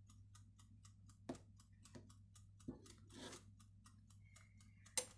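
Quiet handling sounds of a metal ice-cream scoop working strawberry ice cream out of the machine's freezing bowl and into a glass: a few light clicks and a soft scrape, with a sharper click near the end. A low steady hum lies underneath.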